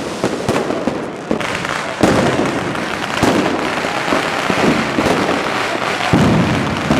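Many fireworks going off at once: a dense, continuous run of overlapping bangs and crackling pops, with a sharper bang about two seconds in.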